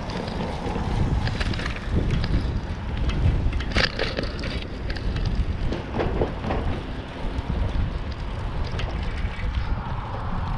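Wind buffeting the microphone of a camera on a moving bicycle, a steady low rumble, with a few sharp knocks and rattles, the loudest about four seconds in.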